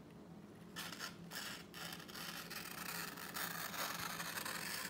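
A sharp M390 steel blade of a Lion Steel slipjoint knife slicing through a sheet of paper: a soft, hissing scrape. It comes as a few short strokes starting about a second in, then a steadier continuous slice from about two seconds in.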